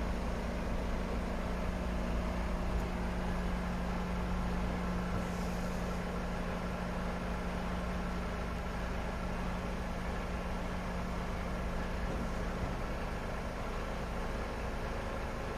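Mercedes-Benz Arocs 4142 tipper truck's straight-six diesel engine running at a steady hum while the hydraulic tipper body is raised.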